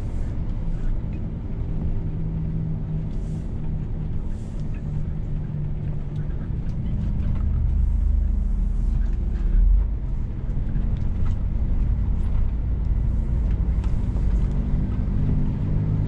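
Scania S500 truck's diesel engine and road noise heard inside the cab while driving: a steady low drone that grows louder about halfway through, with a brief low thump just before ten seconds in.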